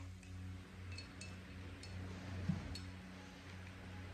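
Paintbrush clinking lightly against the rim of a rinse-water cup a few times, each clink ringing briefly, over a low steady hum.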